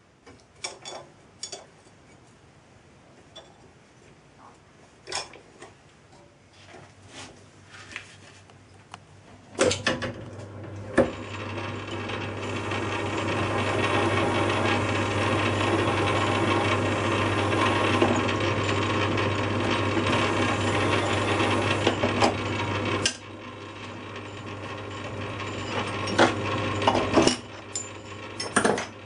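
Lathe workshop sounds, starting with scattered light clicks and knocks as the flywheel is set up in the chuck. About ten seconds in, the lathe starts with a knock and runs with a steady hum while a tailstock drill cuts into the spinning flywheel's hub. The cutting noise stops suddenly a little after twenty seconds, leaving quieter running and a few knocks.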